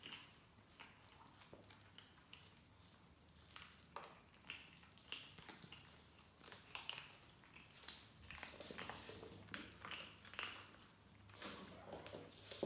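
Kittens crunching dry kibble from a plate: faint, irregular small crunches and clicks, a few a second.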